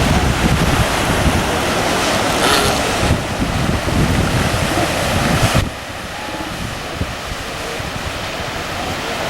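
Wind buffeting the microphone over the steady wash of surf. The wind noise drops off suddenly a little over halfway through, leaving the quieter surf.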